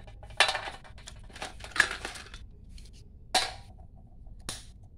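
Dry cinnamon sticks being snapped by hand, with pieces dropping onto a metal plate: a few sharp cracks and clinks, about four, with dry scratchy rustling between them.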